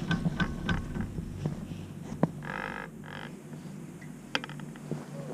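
Chairlift running: a quick run of rhythmic clicks, about three a second, dies away within the first second, followed by a brief tone about midway and one sharp click later, over a steady low hum.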